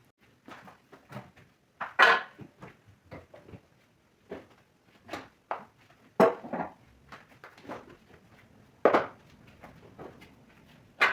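Irregular knocks, clinks and rattles of containers and food items being handled at a refrigerator that is being sorted out, with about five sharper bangs among them.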